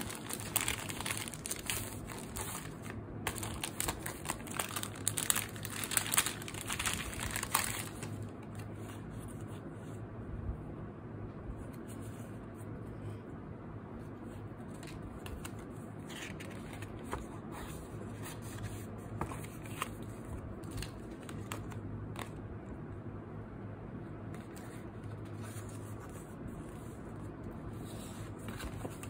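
Clear plastic sleeve crinkling as album postcards and photocards are slid out of it, dense for about the first eight seconds. After that comes quieter handling of cards and paper inserts, with scattered soft rustles and taps.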